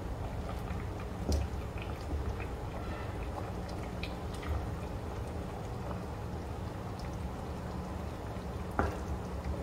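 A silicone spatula stirring thick curry in a steel pot: wet sloshing of the liquid with light clicks, and two louder knocks against the pot, one about a second in and one near the end, over a steady low hum.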